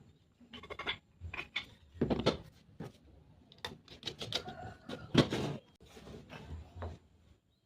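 Irregular knocks, taps and short scrapes of objects being handled, a dozen or so uneven hits with the loudest about two and five seconds in.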